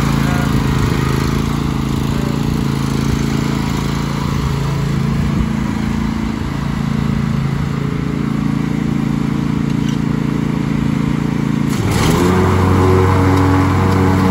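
Lawn mower engine running steadily. Near the end its note shifts, with a short rising whine, and settles to a new steady pitch.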